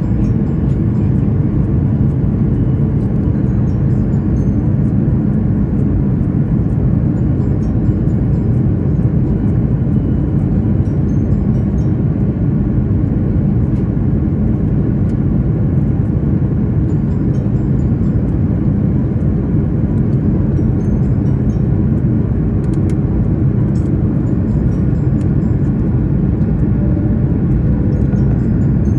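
Airliner cabin noise: the jet engines and airflow heard from inside the passenger cabin as a steady, low, unbroken noise.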